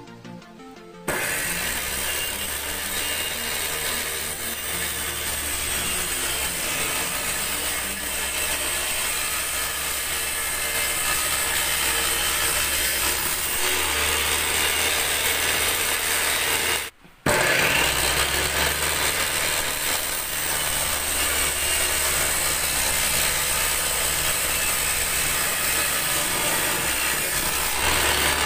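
Circular saw mounted under a homemade table-saw top, its motor running steadily as thin wood strips are ripped along the fence through the blade. It comes in suddenly about a second in and drops out for a moment a little past the middle.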